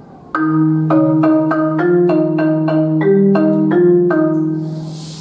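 Concert marimba played with mallets: a rhythmic run of struck notes, about three or four a second, starting sharply a third of a second in. Each note rings on, and the run dies away near the end.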